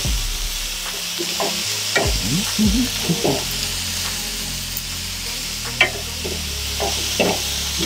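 Chopped onion sizzling steadily in a skillet on a gas stove, stirred with a utensil that scrapes and clicks against the pan now and then.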